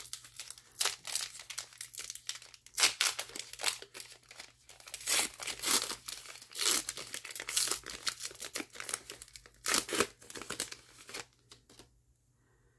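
A 2017 Football Classics trading-card pack's wrapper crinkling and tearing in irregular bursts as it is squeezed and ripped open by hand. The crinkling stops about a second before the end.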